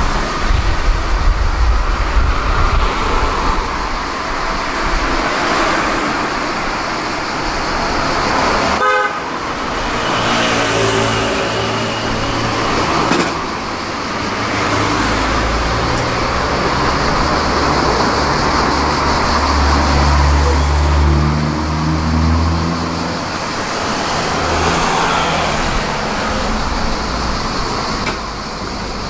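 Street traffic: motor vehicle engines running and passing. A deep engine hum builds from about ten seconds in and is loudest around twenty seconds.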